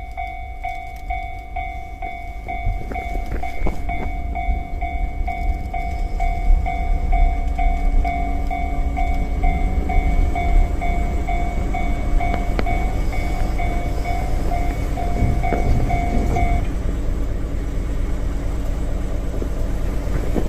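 Japanese level-crossing warning bell ringing steadily, about two strokes a second, while a diesel train's low rumble builds underneath. The bell stops about three-quarters of the way through, and the train rumble carries on.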